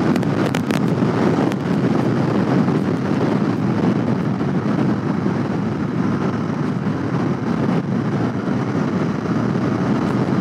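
Royal Enfield Continental GT 650's 648 cc parallel-twin engine running steadily while the bike rides along, mixed with wind rushing over the microphone.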